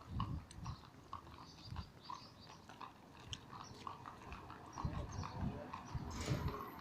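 Horses' hooves clopping at a walk, sharp ticks at about two a second, with low, dull thumps now and then.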